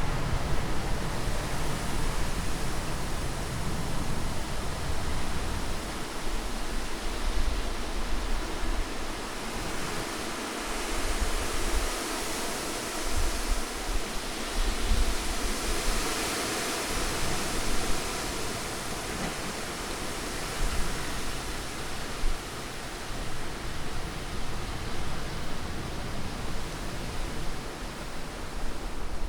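Wind blowing as a steady rushing hiss that swells for a few seconds in the middle, with an uneven low rumble underneath.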